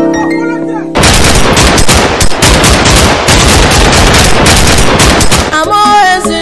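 Rapid machine-gun fire sound effect, a dense unbroken burst of about four and a half seconds, coming in after a held tone in the first second and giving way to music near the end.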